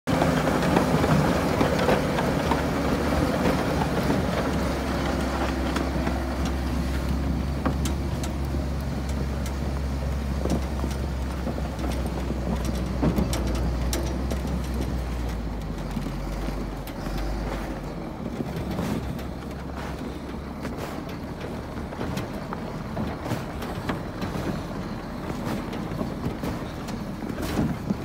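Shantui crawler bulldozer's diesel engine running hard as it tows a heavy tank, a steady low drone. About sixteen seconds in the drone drops away and a quieter, rougher rumble remains.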